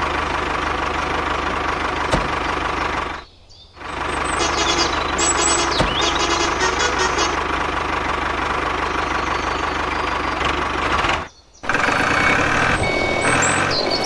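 Tractor engine running steadily with a low knocking chug. It cuts out briefly twice, about three seconds in and again about eleven seconds in.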